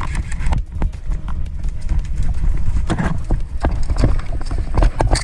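Rapid footsteps of a player running on hard, stony ground, with quick irregular knocks of gear. A heavy low rumble of wind and handling noise on a body-worn microphone runs underneath.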